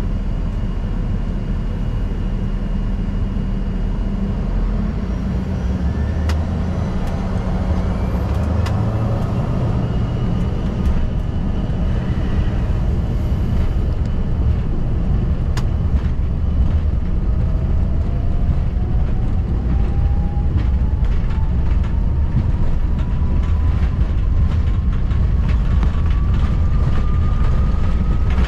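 Cabin noise inside an Embraer ERJ-145: a steady low rumble from its rear-mounted Rolls-Royce AE3007 turbofans and the airframe, growing slowly louder. A faint whine rises in pitch twice, once about six seconds in and again steadily through the second half.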